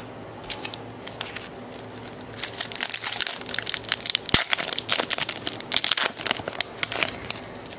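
Plastic foil wrapper of a hockey card pack being torn open and crinkled by hand: a few light crinkles at first, then a dense run of sharp crackles from about two and a half seconds in, with one louder snap in the middle.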